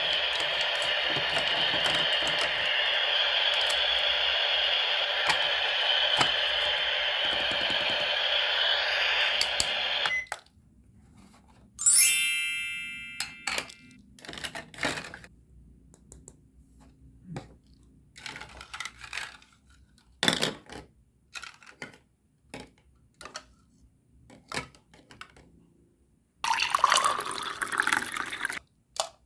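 A toy kitchen set in use: a steady watery hiss, the boiling sound effect of a toy cooktop, runs for about ten seconds and cuts off suddenly, followed by a single bright ding. Then light plastic clicks and knocks of toy vegetables and utensils in a plastic pot, and near the end a short watery rush as the pot is tipped into a bowl.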